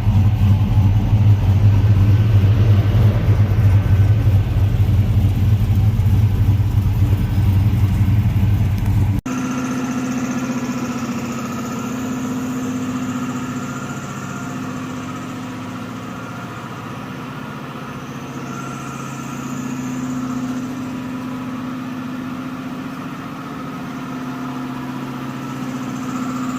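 Chevrolet Avalanche V8 engine idling steadily, loud and deep for about nine seconds. Then an abrupt cut to a quieter, steadier run with a slowly wavering hum.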